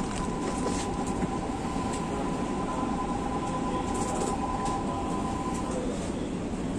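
Cab interior noise of a Keikyu Main Line train standing at a station: a steady rumble and hiss, with a steady whine that stops about six seconds in.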